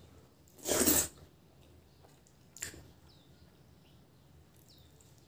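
Close-miked mouth noises while eating rice and pork curry by hand: a loud, half-second wet slurp about a second in, then a short sharp smack of the lips near the middle.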